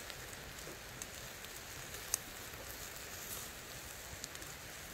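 Pork sizzling on a grill over the fire, a steady hiss with a few sharp pops, the loudest about two seconds in.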